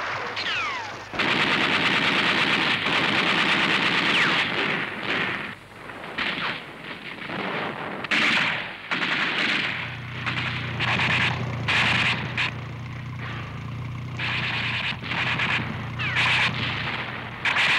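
Rapid machine-gun fire, dense for the first few seconds and then in separate bursts with short gaps. There are a couple of short falling whistles, and a low steady drone joins about ten seconds in.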